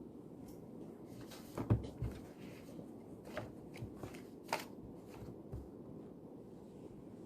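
Steady low room hum with a scatter of soft clicks, taps and rustles, as of study things being handled on a desk; the two sharpest come about a second and a half and four and a half seconds in.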